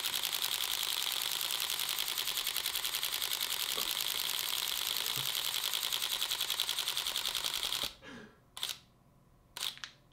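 Camera shutter firing in a long continuous burst, an even rapid train of clicks, many per second, that cuts off suddenly near the end. A couple of single handling clicks follow.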